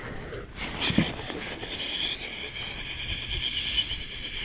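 Fishing reel whirring steadily in a high pitch while a big bass is fought on the line, with a single knock about a second in.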